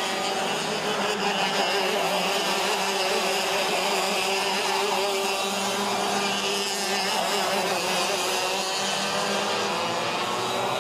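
Racing go-kart engines, single-cylinder two-stroke 125 cc ROK units, running at high revs as the karts race through the corners. Several engine notes overlap, their pitch wavering up and down as the drivers brake and accelerate.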